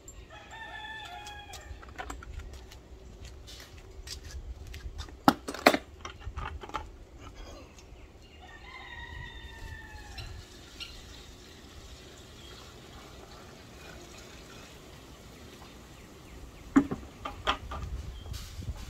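A rooster crows twice, once about half a second in and again, longer, about eight seconds later, each crow drawn out and falling slightly at the end. Between the crows come a few sharp knocks of plastic buckets being handled.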